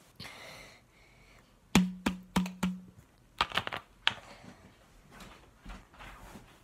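Baby drinking from a bottle: irregular sharp sucking clicks and taps at the nipple, with a short low hum under the first few about two seconds in.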